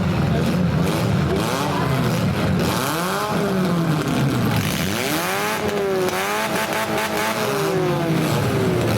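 Stock compact demolition derby car engines revving up and down, several at once, their pitch rising and falling in repeated swoops from about three seconds in over a steady low running sound.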